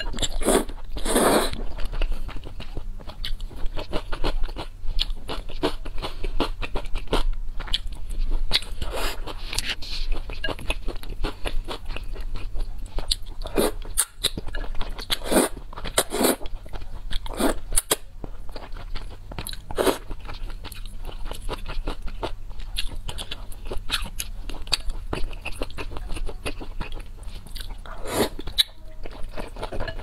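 Close-miked mouth sounds of a person eating spicy noodles: noodles slurped in from chopsticks several times, between continuous wet chewing and smacking.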